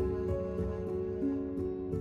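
Background music: an instrumental piece of held melodic notes that shift from one pitch to the next over a light, regular pulse.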